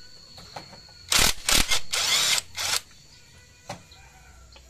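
Cordless power wrench with a socket extension spinning in several short bursts, about a second in, as it runs out bolts on a Yamaha NMAX scooter engine; a single click follows.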